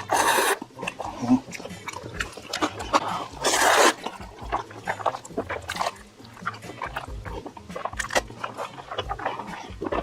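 Close-miked eating: wet chewing and mouth smacking made of many small clicks, with two louder noisy bursts, one at the start and one about three and a half seconds in.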